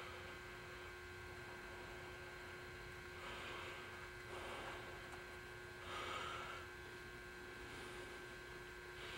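Quiet room tone: a steady electrical hum, with three faint, short breathy sounds about three, six and eight seconds in.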